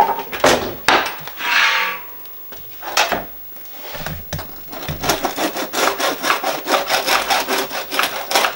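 A wooden cutting board knocked down on the counter and a crusty homemade loaf shifted onto it, then a bread knife sawing through the hard crust in quick back-and-forth strokes from about halfway on.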